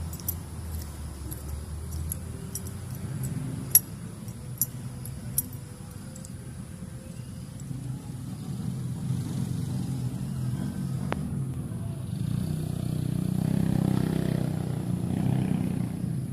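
Low, steady rumble of a vehicle engine that grows louder in the last few seconds, with a few sharp clicks in the first five seconds.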